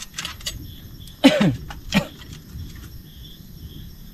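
Crickets chirping in a steady, even pulse, with a few light clicks at the start and a short human vocal sound falling in pitch about a second in, followed by a smaller one near two seconds.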